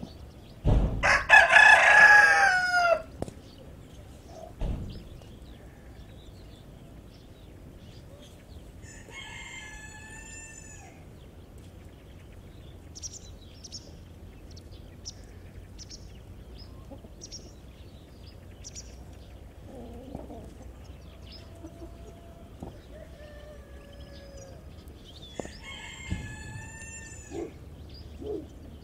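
A rooster crows loudly about a second in, and two fainter crows follow, one about a third of the way through and one near the end. Between them come short, high peeps, typical of chicks, and a few soft, low hen calls.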